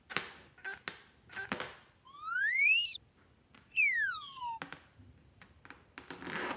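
Short squeaks of fingers rubbing a rubber water balloon, then a slide-whistle sound effect that glides up in pitch and, about a second later, glides back down.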